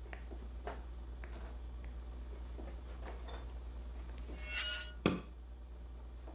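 A steady low hum with scattered faint clicks. About four and a half seconds in comes a brief bright ringing shimmer with a few held tones, then one sharp knock, the loudest sound here.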